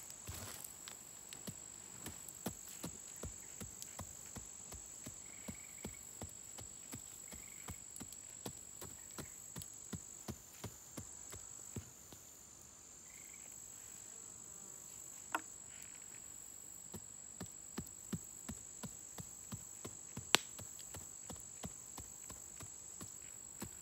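Steady high-pitched insect drone, with irregular light ticks and crackles and two sharper clicks in the second half as hands work the ash and dirt by a smouldering fire.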